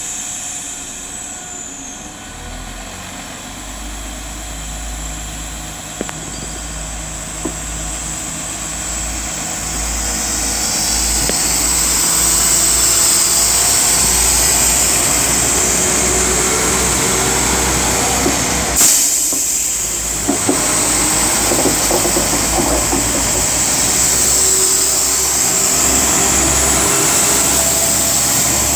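Two coupled Class 172 Turbostar diesel multiple units pulling away from a station stop. Their diesel engines run under load and the wheels rumble on the rails, growing louder as the train accelerates past, with a brief dip about two-thirds of the way through.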